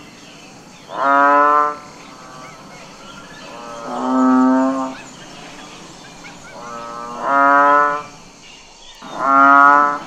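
Cattle mooing: four loud calls, each about a second long, coming every two to three seconds.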